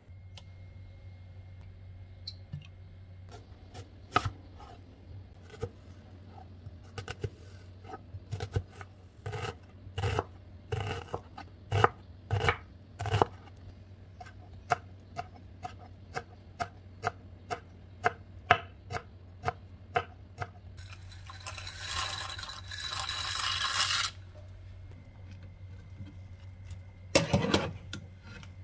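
Santoku-style knife dicing onion on a wooden cutting board: a long series of sharp knocks, about one to two a second, over a steady low hum. After that comes a few seconds of hiss, then a short clattering burst near the end.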